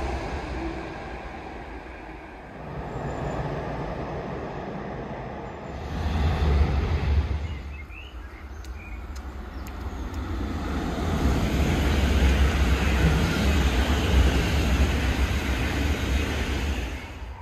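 Electric passenger trains running over railway bridges: a steady low rumble of wheels on rails. It changes abruptly about six seconds in, then builds from about ten seconds in as a regional electric multiple unit rolls onto a stone arch bridge.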